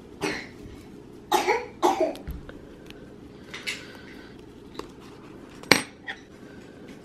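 A person coughing: four short coughs, two of them close together about a second and a half in. A single sharp click near the end is the loudest sound.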